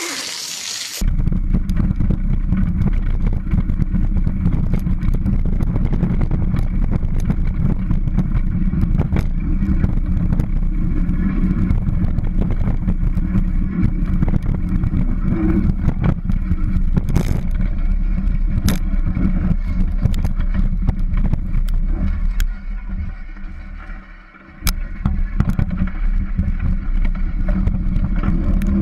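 Steady low rumble of a kick scooter rolling fast over a gravel trail, picked up by a camera mounted on the scooter, with small rattles and knocks from the rough surface. It drops away for about two seconds three-quarters of the way through, then comes back.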